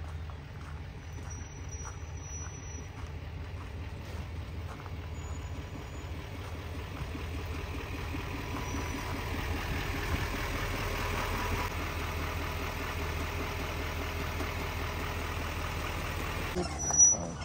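Heavy-duty GMC Sierra HD pickup engine idling with a steady low rumble, growing louder over the first ten seconds or so. Light footsteps tick during the first few seconds, and a brief sharp knock comes near the end.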